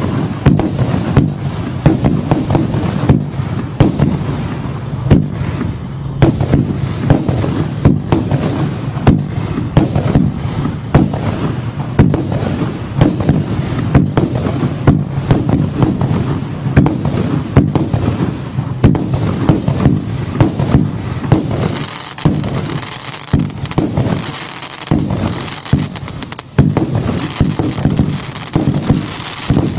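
Consumer firework barrage firing continuously from the ground, with rapid shots and bursts several times a second over a steady rumble. From about two-thirds of the way through, the low rumble thins and a brighter, hissing crackle takes over.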